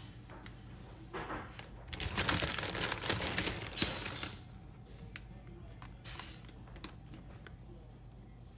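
Rustling, crackling scrape of a spatula spreading shredded cheese over macaroni in a disposable aluminium foil pan, loudest from about two to four seconds in, then a few light ticks.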